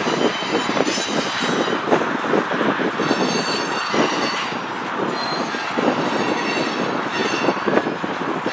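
Freight train cars (covered hoppers and tank cars) rolling past on steel rail: a steady rumble of wheels on rail with irregular clicks as wheels cross rail joints, and brief high squeals from the wheels now and then.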